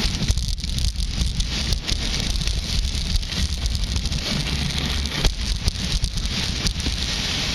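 Wind buffeting the microphone of a camera moving at skiing speed, over the steady hiss and scrape of skis running on groomed snow, with irregular short scrapes throughout.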